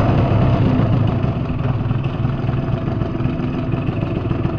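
Aprilia SR 50 scooter's 50 cc two-stroke engine idling steadily through a LeoVince RR aftermarket expansion-chamber exhaust.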